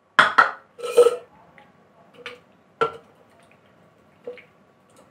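Cherries tipped from a ceramic bowl into a plastic blender beaker, clattering: two louder clatters in the first second, then a few lighter single knocks spaced about a second apart.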